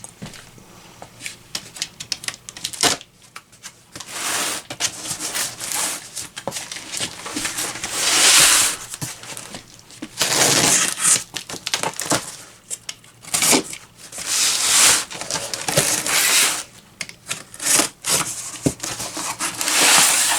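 A cardboard box and its packing being opened by hand: irregular rustling, crinkling and tearing of the packaging, in many short bursts and a few longer, louder ones lasting about a second.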